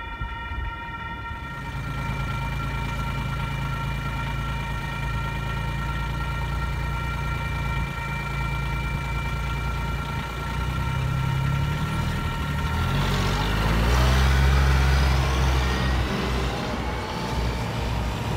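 A chord of steady tones cuts off about a second and a half in. Then vehicle engines run at a railroad crossing, one growing louder and passing close a little over two-thirds of the way through, its pitch rising as it pulls away across the tracks.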